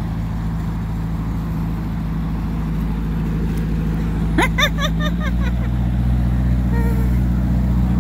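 Motorboat engine running slowly close by, a steady low hum that grows a little louder and shifts pitch about five seconds in. A short, high, rising warbling call cuts over it about four and a half seconds in.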